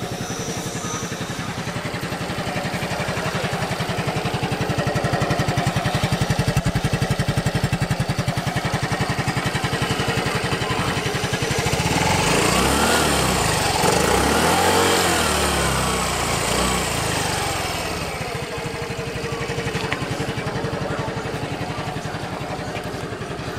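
Yamaha Fazzio Hybrid scooter's single-cylinder engine idling steadily through its standard exhaust. About halfway in, a louder engine sound rises and falls in pitch for several seconds before the steady idle returns.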